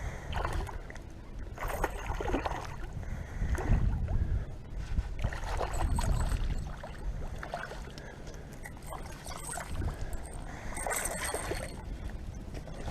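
Water splashing and sloshing in short bursts at the pond's edge over a low, steady rumble.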